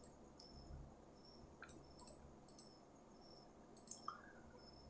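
Faint computer mouse clicks, about eight scattered short clicks over near silence.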